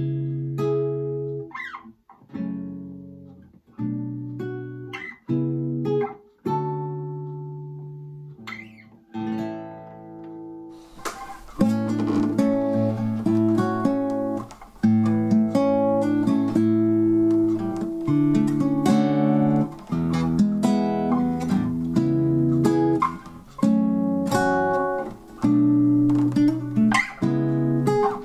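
Valencia classical guitar strung with new Ernie Ball Ernesto Palla black-and-gold nylon strings, played fingerstyle: separate plucked notes and chords with short pauses at first. About eleven seconds in, the playing becomes continuous and the sound turns fuller and brighter, as the recording switches from the phone's microphone to a Focusrite iTrack Pocket audio interface.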